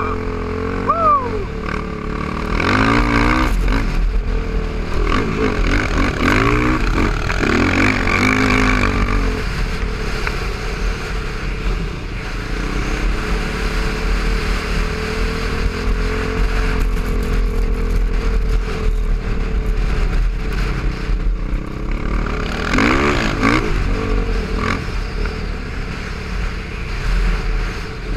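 Sport ATV engine ridden over sand, revving up and down in quick throttle bursts about three seconds in, again for a few seconds around six to nine seconds, and near the end; it runs more steadily in between.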